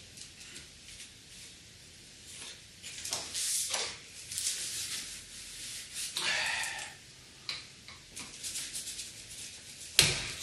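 Roller blind being handled and fitted into its ceiling brackets: short scrapes and rubbing of the roller and plastic fittings, with a few light clicks and one sharp click near the end.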